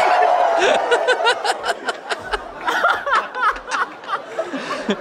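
Several people laughing hard: a long, high laughing cry at the start, then broken giggles and chuckles.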